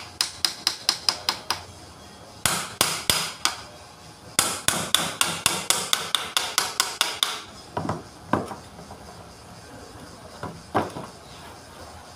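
A hammer striking a forklift alternator in three quick runs of sharp, ringing taps, about seven a second, then a few single knocks near the end.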